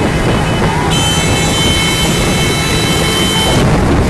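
Loud, steady traffic rumble heard from a moving vehicle among motorcycles. About a second in, a shrill, steady high tone starts and holds for roughly two and a half seconds before cutting off suddenly.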